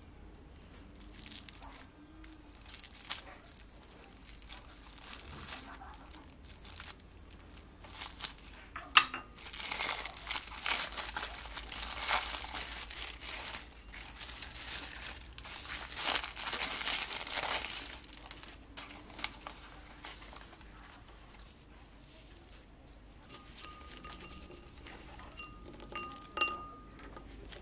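Cellophane wrapping and paper packets of firecrackers crinkling and tearing as they are cut with scissors and unwrapped by hand, with scattered snips and clicks; the rustling is loudest and most continuous from about ten to eighteen seconds in. Near the end, a clink of firecrackers dropping onto a glass plate.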